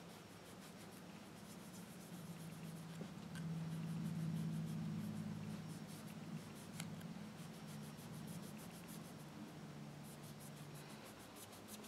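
Soft rubbing and faint scratching of a foam sponge applicator buffing pigment powder onto a plastic practice nail, with a few light ticks. A low steady hum runs underneath, swelling about four seconds in.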